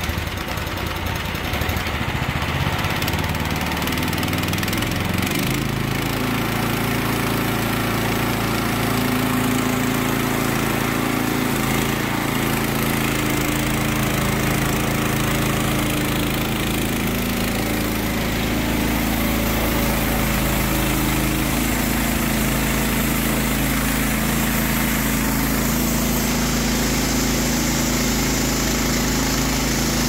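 Small gasoline engine of a Norwood LM30 portable bandsaw mill running steadily under load while the band blade cuts through a log. The engine's note shifts about five seconds in, then holds steady.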